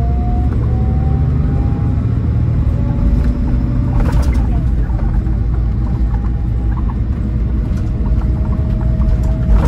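Scania K440EB6 coach on the move, heard from inside: a steady low engine and road rumble from its 13-litre six-cylinder diesel. Over it, a thin whine rises slowly in pitch and then holds steady. A brief rattle comes about four seconds in.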